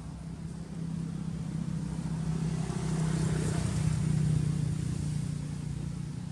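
A motor vehicle passing on a road, its engine a steady low hum that grows louder, peaks about four seconds in, then fades away.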